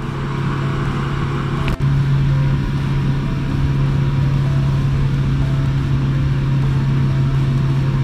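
Motorboat's engine running steadily at speed, a constant deep hum under the rush of wind and water; a brief break in the sound a little under two seconds in.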